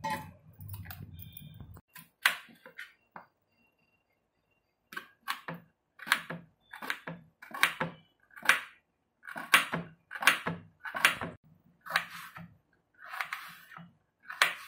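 Knife chopping an onion on a plate, a series of short crisp cuts about two a second, starting about five seconds in.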